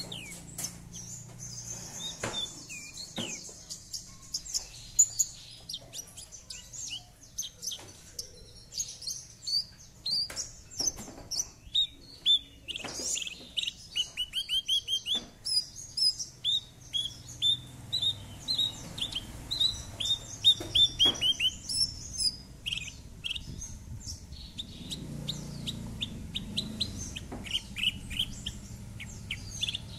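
Javan bush lark (branjangan) singing a fast, varied song of high chirps and short falling notes, with dense runs of rapid notes around the middle.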